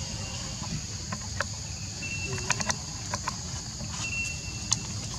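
Steady high insect chorus, crickets or cicadas, with a low rumble beneath it. Scattered sharp clicks cut through, a cluster about halfway through and the loudest near the end, along with two short, steady high chirps.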